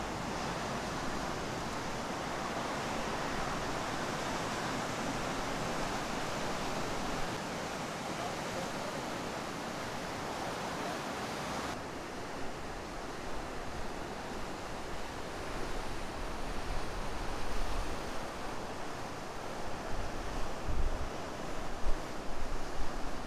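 Ocean surf breaking and washing in a steady rush. In the second half, wind gusts buffet the microphone, loudest near the end.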